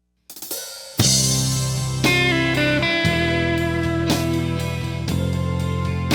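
Instrumental intro of a blues song: electric guitar and bass over a drum kit, starting about a second in after a short quiet lead-in.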